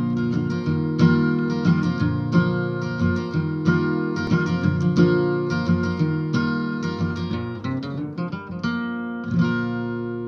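Blueridge acoustic guitar playing a quickly picked lick, ending on a chord about nine seconds in that rings out and fades.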